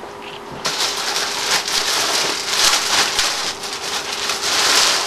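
Packing paper and wrapping rustling and crinkling as jeans are pulled out of a shipping box; the dense crackle sets in about half a second in.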